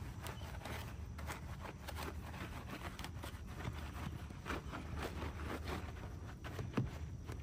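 Bristle wheel brush scrubbing a foam-covered alloy wheel: irregular short wet scratching strokes as it works between the spokes, with a couple of sharper clicks near the end. A steady low hum runs underneath.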